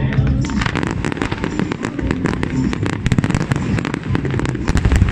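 Fireworks display in full barrage: many shells bursting and crackling stars popping in rapid succession, a dense run of sharp reports over a continuous low rumble.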